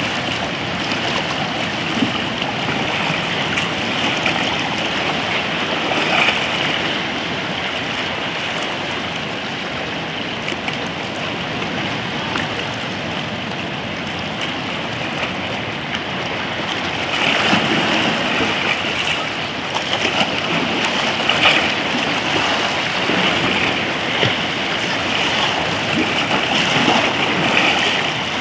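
Small sea waves washing and lapping around rocks in shallow water: a steady rush of water that swells louder now and then.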